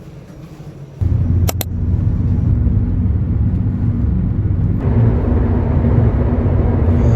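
A loud engine running close by: a low, steady rumble that starts suddenly about a second in, with two sharp clicks just after it starts.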